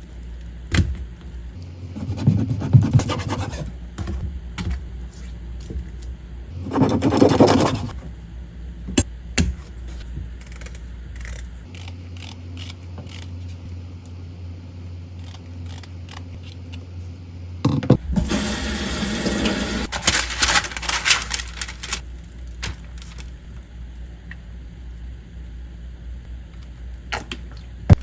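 Kitchen sounds: a few bursts of noise lasting one to four seconds, one near the start, one about seven seconds in, and a longer one past the middle, much like running or pouring water. Short clicks and clinks of dishes or utensils fall between them.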